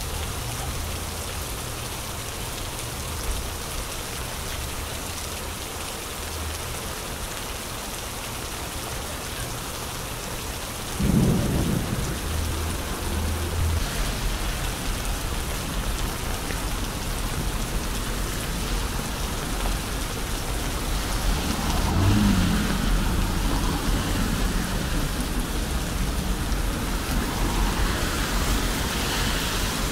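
Steady rain falling on wet pavement. About eleven seconds in, a sudden low rumble sets in and carries on under the rain, typical of storm wind buffeting the microphone.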